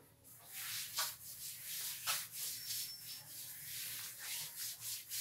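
A chalkboard duster wiping chalk writing off a flexible roll-up blackboard, in repeated rubbing strokes about two a second that stop near the end.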